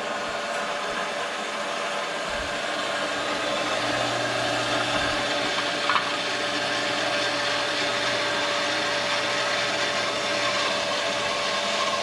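Electric jet well pump running steadily, a motor hum with a faint steady whine, a low hum firming up about four seconds in. It has just been restarted after scale blocking the line to its pressure switch was cleared, and sounds promising.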